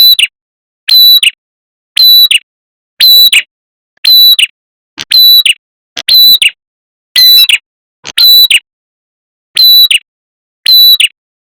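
Recorded lure call of the red-headed prenjak, a small Indonesian warbler: a loud, sharp chirping call repeated about once a second, eleven times over, with silence between calls.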